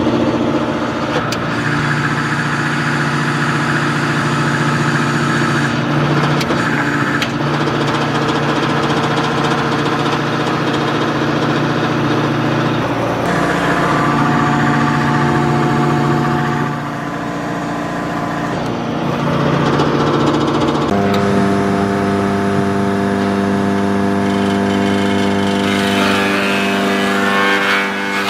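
Blackstone BTC 100 Hydro PTO-driven wood chipper running with a steady drone that shifts pitch a few times. Near the end a branch is fed in and chipped, adding a rough crackling noise.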